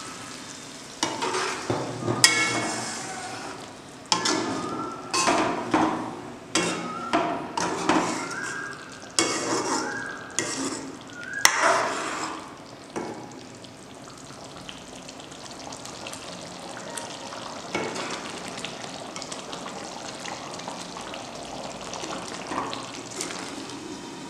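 Steel ladle stirring and scraping a thick peanut-masala curry with stuffed brinjals in a metal kadai, about a dozen strokes, some with a brief squeak. After about halfway the stirring stops and the curry sizzles steadily as it simmers.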